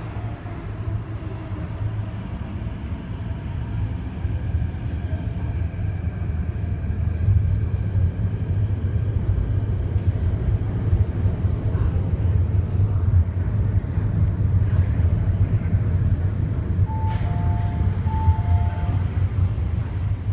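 MTR Kwun Tong Line C-Train rumbling in the tunnel behind the platform screen doors, growing louder. Near the end a two-note chime, high then low, sounds twice.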